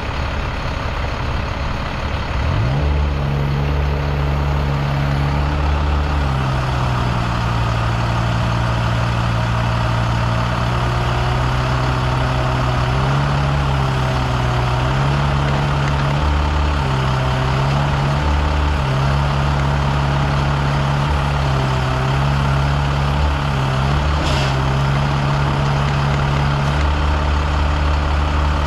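Diesel mini excavator engine throttling up about two and a half seconds in, then working hard as the machine pulls a heavy chained load uphill. Its note sags and recovers again and again under the load. A single sharp click comes near the end.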